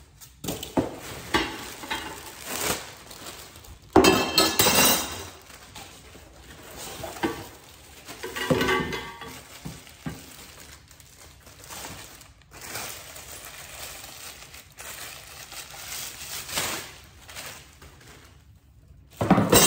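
Plastic wrapping crinkling and rustling as packaged chrome bar stool parts are unwrapped and handled, with occasional clinks of the metal pieces. The loudest rustle comes about four seconds in.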